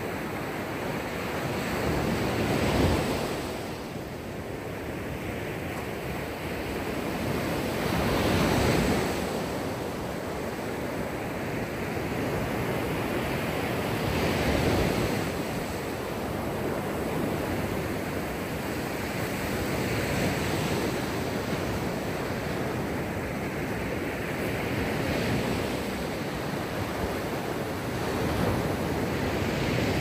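Mediterranean Sea waves breaking in a steady rush of surf, swelling louder every six seconds or so as each wave comes in.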